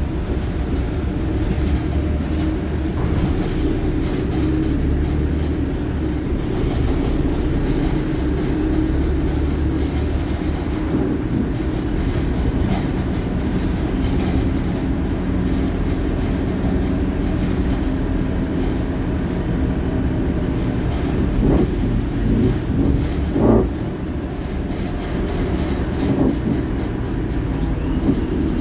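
Euro 6 Wright StreetLite single-deck bus on the move, heard from inside: a steady engine drone over low road rumble. A few short knocks and rattles come about three quarters of the way through, and the drone drops a little just after.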